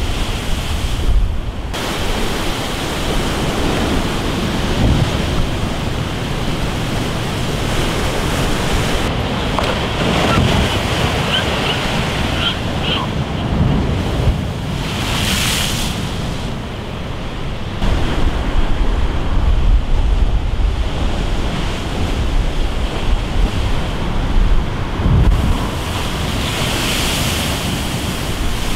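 Heavy storm surf from an offshore hurricane crashing against and over a concrete sea wall, a continuous rush of breaking water and spray with louder hissing crashes about halfway through and near the end. Wind buffets the microphone with a low rumble.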